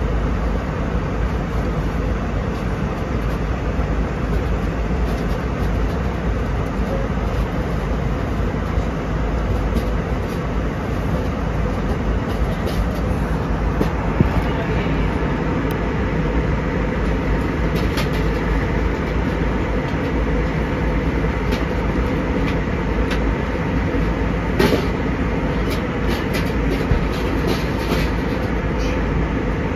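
Steady in-flight cabin noise of an Airbus A320: a constant rush of air along the fuselage over the drone of the engines, heard from a window seat. A few light clicks come in the second half.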